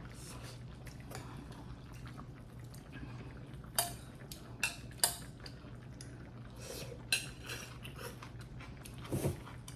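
Eating utensils clinking against bowls and dishes at a meal: a few sharp clinks scattered through, over a faint steady low hum.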